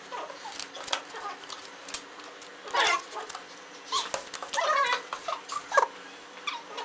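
High-pitched young voices giving short, excited squeals and cries several times, with light clicks of playing cards being flipped and put down on a table.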